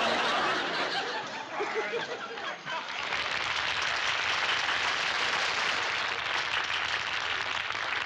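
Studio audience laughing, then clapping in steady applause from about three seconds in.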